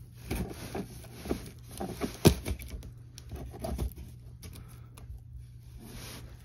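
Cardboard box being handled and shifted, rustling and scraping, with scattered small knocks and one sharp knock a little over two seconds in.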